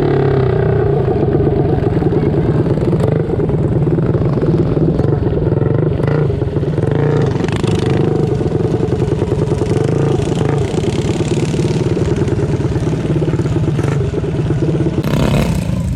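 Mini bike small single-cylinder engines running at a steady pitch, with a brief louder rush of noise near the end.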